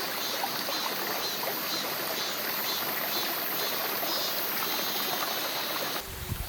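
Mountain valley stream running steadily over rocks, a continuous rushing hiss. The sound cuts off abruptly just before the end, giving way to a lower, gusty rumble.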